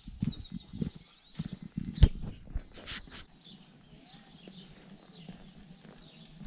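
Footsteps on a paved road, picked up by a camera carried by the walker, with small birds chirping. A sharp knock sounds about two seconds in, and after about three seconds the steps fade, leaving birdsong over a low steady hum.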